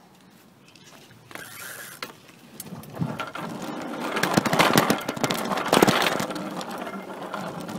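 Rapid mechanical clicking and rattling, building up about three seconds in and loudest just past the middle before easing off.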